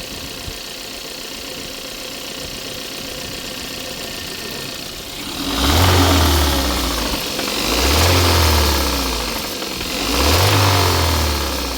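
Car engine idling steadily, then revved three times from about halfway in, each rev rising and falling back. The engine has a bottom-end knock that the instructor takes for a connecting rod problem.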